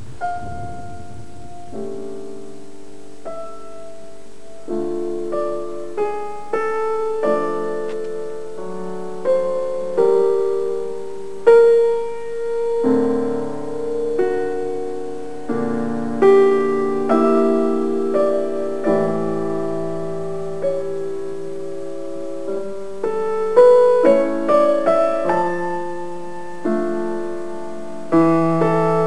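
Background piano music: a slow melody of single notes and chords, each note struck and left to fade.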